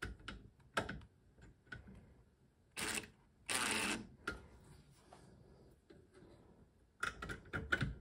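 Cordless DeWalt power driver running in two short bursts a few seconds in, the second about half a second long, driving a screw into the microwave's sheet-metal chassis. Light clicks and knocks of handling come before and after.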